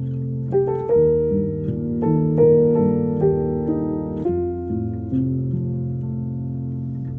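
Background piano music, slow sustained chords changing every second or two.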